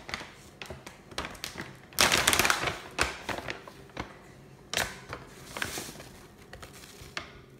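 Handling of a plastic bag of Korean chili powder and a measuring cup: crinkly plastic rustles, loudest about two seconds in, among light taps and clicks.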